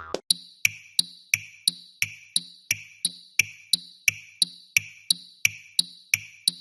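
Japanese railroad crossing warning bell ringing its clang-clang alarm, an even run of bell strikes about three a second.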